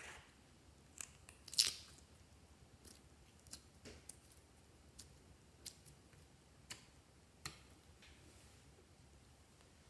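Clear slime being worked by hand, giving scattered sticky clicks and pops, the loudest about one and a half seconds in, then thinning out and stopping near the end.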